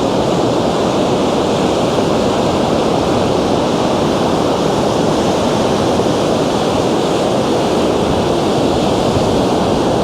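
Surf breaking on a Gulf of Mexico beach, mixed with wind of about 19 mph blowing on the microphone: a loud, steady rushing noise.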